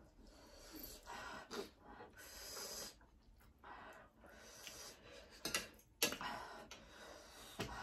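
Noodles being slurped, with heavy breathing and sniffing, as when eating very spicy fire noodles. About two-thirds of the way in come a couple of sharp clicks, like a fork against a plate.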